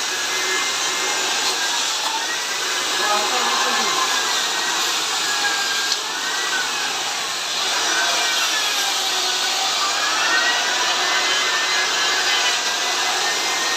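Motorised tree-cutting machine running steadily, a hissing whine whose pitch wavers up and down several times, easing off briefly about six seconds in.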